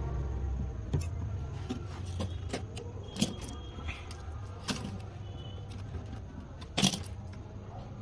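Small metallic clicks and taps from pliers and copper refrigerant tubing being handled and fitted together by hand, the sharpest click about seven seconds in, over a low steady hum.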